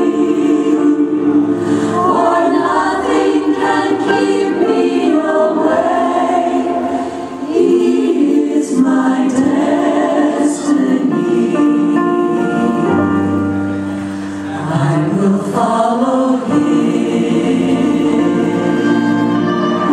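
Choir singing a gospel-style song with musical backing.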